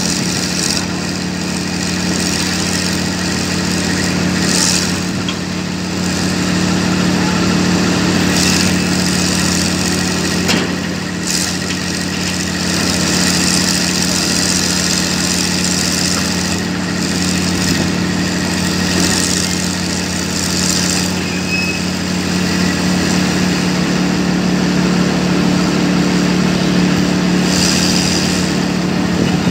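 Diesel engines of hydraulic excavators running steadily under work, as a Hitachi excavator mired in mud pushes down with its boom to free itself. Several brief bursts of higher-pitched noise come and go over the steady engine sound.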